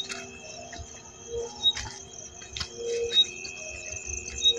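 Night insects, crickets, chirring steadily in several even high tones, with a short high chirp about every second and a half and a few sharp clicks.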